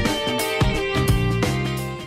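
Instrumental background music with a beat, fading out near the end.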